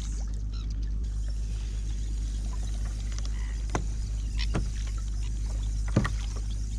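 Water lapping against a plastic fishing kayak's hull over a steady low rumble of wind on the microphone, with a few faint short knocks.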